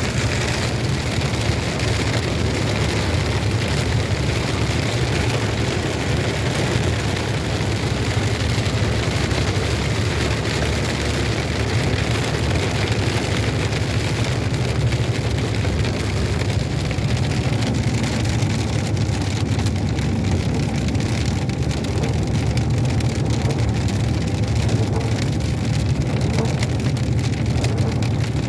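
Steady rain falling on a moving car, mixed with a steady low rumble of the car's engine and tyres on the road.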